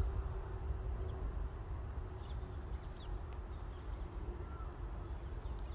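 Outdoor park ambience: small birds chirping in short, high calls, with a quick run of chirps about three and a half seconds in, over a low steady rumble and a faint steady hum.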